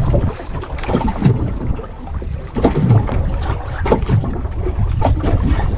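Water slapping and sloshing against the hull of a small outrigger boat, with wind buffeting the microphone and a few irregular knocks.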